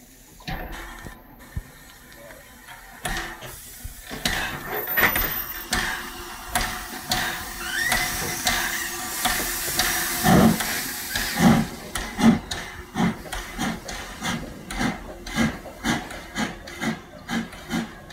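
Steam locomotive W24 Calbourne, an LSWR O2 class 0-4-4 tank engine, starting away with its train: steam hissing, then exhaust beats from about ten seconds in that quicken as it gathers speed.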